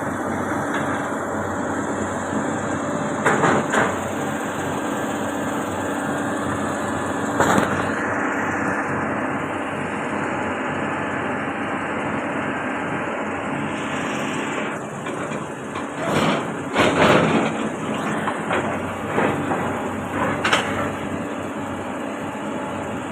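Caterpillar 320D L excavator's diesel engine running steadily under work, with several loud knocks and clanks from the machine, the heaviest bunched about two-thirds of the way through.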